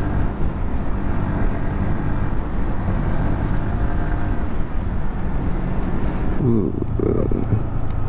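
Motorcycle engine running steadily while riding, with wind noise on the microphone; the upper hiss drops away near the end.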